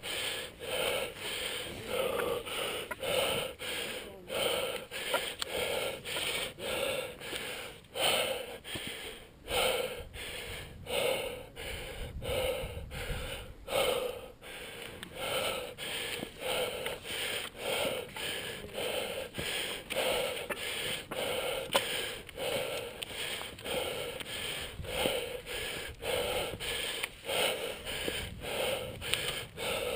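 A person's heavy breathing from the exertion of climbing, at a fast, even rhythm of close to two breaths a second.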